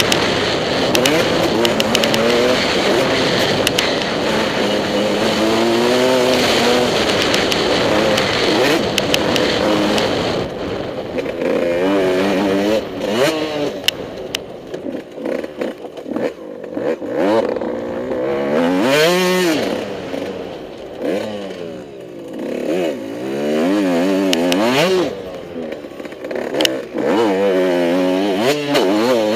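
Motocross bike engine ridden hard on a race track: held at high revs for about the first ten seconds, then revving up and dropping back again and again as the throttle is opened and rolled off.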